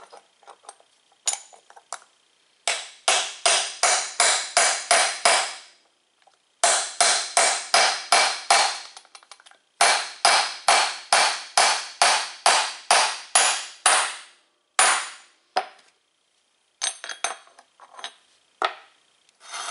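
Hammer blows on a steel bearing-race driver, driving a tapered steel bearing race into a Porsche 944 aluminum front wheel hub: three runs of quick, ringing strikes, about three a second, with short pauses between. A few lighter metal clinks follow near the end.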